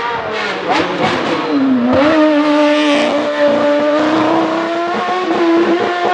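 A competition car's engine running hard on a hillclimb, with a few sharp cracks in the first second or so. The revs drop about two seconds in, then climb steadily as it accelerates.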